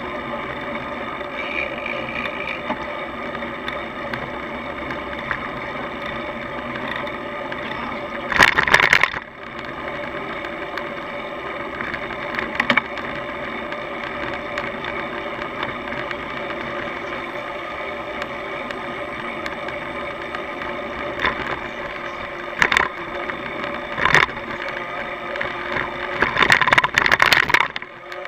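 Steady riding noise from a bicycle-mounted camera: road and wind noise with rattling. A loud burst of rattling comes about eight seconds in, a few short knocks follow, and a longer rattle comes near the end as the bike goes over bumps.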